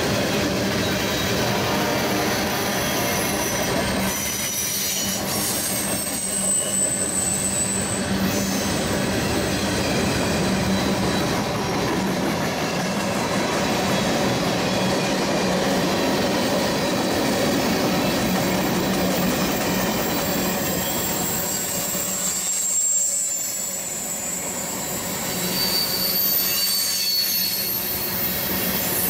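Freight cars of a passing train rolling by at speed: a continuous loud rumble and rattle of steel wheels on the rails. Thin, high squeals come in briefly about 6 seconds in and again from about 22 to 27 seconds.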